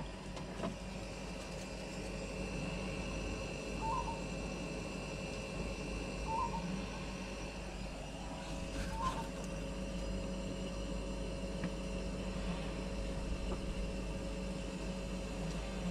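Steady hum of a Kings dual-zone compressor fridge running on maximum cooling. A bird outside gives four short calls a few seconds apart over the first half.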